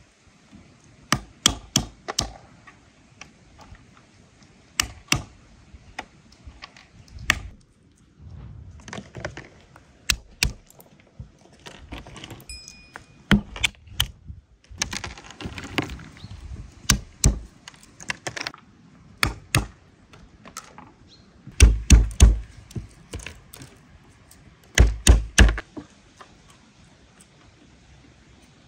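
Walnuts being cracked with a hand-held stone on a wooden tree stump: sharp knocks and shell cracks, often two to four strikes in quick succession, the heaviest about two-thirds of the way through.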